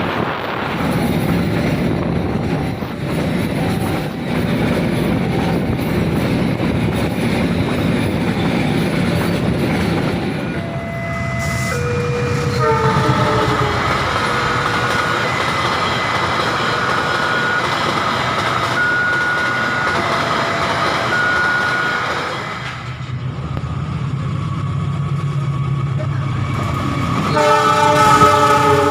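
Train running past with steady wheel and rail noise, then a locomotive air horn sounding several notes at once about twelve seconds in, and again, loudest, near the end.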